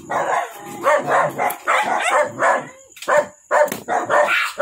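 A dog barking in quick runs of short barks, about three or four a second, with a brief pause partway through. A cleaver knocks a few times on a cutting board underneath.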